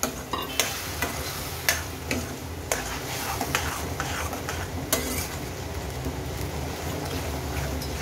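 Tomato purée and onion masala sizzling in hot oil in a stainless-steel pan while a metal spoon stirs it, scraping and clinking against the pan several times in the first half and more evenly after.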